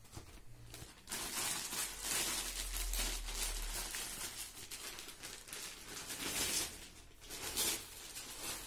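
Clear plastic sleeve crinkling and rustling as a rifle is pulled out of it, starting about a second in, with a couple of louder rustles near the end.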